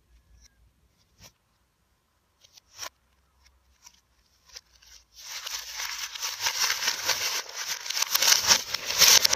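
A sheet of paper being crumpled and torn by hand, close to the microphone: loud, dense crackling that starts about five seconds in and runs on for about four seconds. A few faint clicks come before it.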